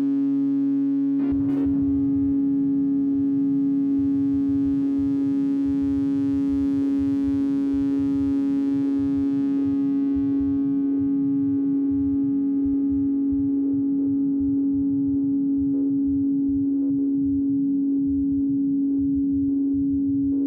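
Elektron Model:Cycles synthesizer holding a sustained drone: one steady tone with overtones over a shifting, fluttering low texture that comes in about a second in. A faint airy hiss above it fades away about halfway through.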